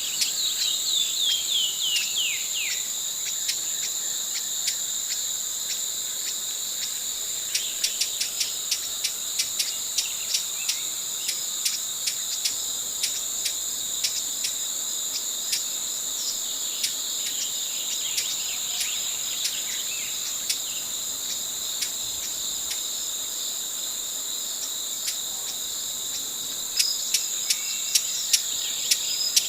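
Broad-billed hummingbird calling: dry, sharp chip notes in quick runs, with a short descending chatter near the start. A steady, high-pitched insect drone runs underneath.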